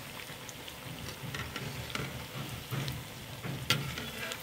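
Besan-battered green chilli pakoras deep-frying in hot ghee in a metal kadhai: a steady sizzling crackle, with a few sharper clicks, the loudest about three and a half seconds in. The chillies are nearly done frying.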